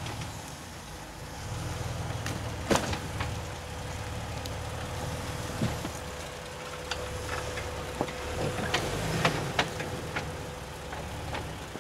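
Jeep engine running steadily at low speed over rough ground, with sharp knocks and clunks scattered through it. The loudest knock comes about three seconds in, and a cluster of them comes later on.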